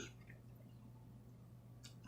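Near silence: room tone with a faint steady low hum and one small click near the end.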